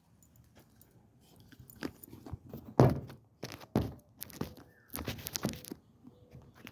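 Close handling noise: a string of knocks, clicks and rustles from a phone and controller being fumbled, with the loudest knock about three seconds in.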